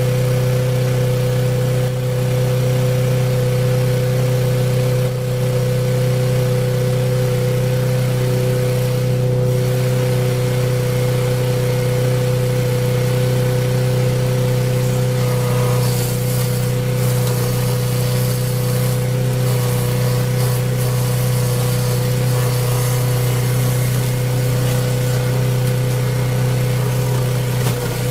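Engine of a wood-processing machine running steadily at one speed, with a stretch of harsher hiss about halfway through.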